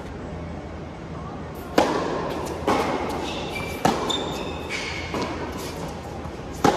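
Tennis rally in an indoor hall: sharp pops of racket strings hitting the ball, the nearest and loudest about two seconds in, four seconds in and at the very end, with softer hits and bounces from the far side between them, echoing off the hall. Brief high squeaks of shoes on the hard court come in the middle.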